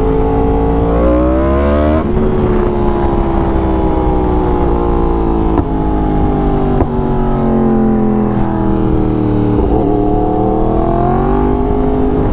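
2016 Yamaha R1 crossplane inline-four with an Arrow full exhaust, heard from the rider's seat while riding. The engine note rises about a second in and drops sharply about two seconds in. It then eases slowly down and climbs again near the end.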